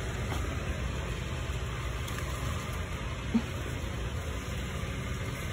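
Steady low rumble and hiss of background noise, with one brief short sound a little past halfway.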